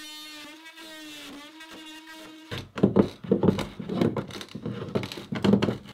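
A faint steady hum, then, about two and a half seconds in, louder scraping, rubbing and knocking against the wooden wall studs while a tape measure is handled and the cut is laid out.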